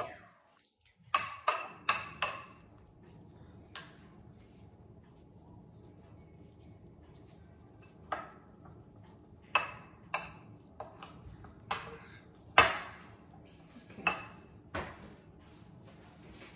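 Spoon clinking and scraping against a ceramic bowl while stirring a thick tuna-mayonnaise mix. There are four quick clinks about a second in, then scattered clinks over the last half.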